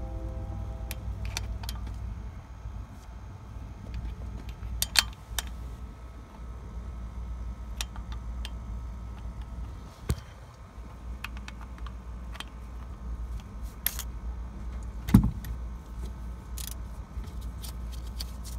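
Scattered sharp metallic clinks and clanks of a torque wrench and socket against the engine's valve train as an injector hold-down bolt is being tightened, the loudest about five and fifteen seconds in, over a steady low hum.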